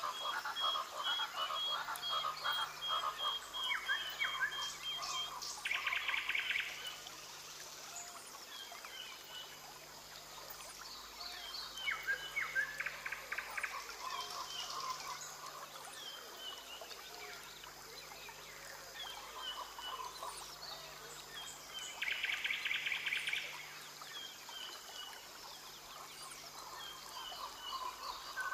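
Rainforest ambience of many birds calling and chirping. A fast, evenly repeated high note sounds for the first five seconds, and short buzzing trills come twice, about six seconds in and again around twenty-two seconds.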